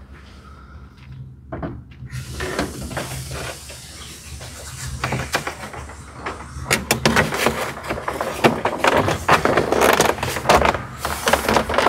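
Molded plastic dash cap being set over a cracked pickup dashboard and pressed down by hand: plastic scraping, rustling and light knocks. It starts about two seconds in and gets busier and louder from about seven seconds in.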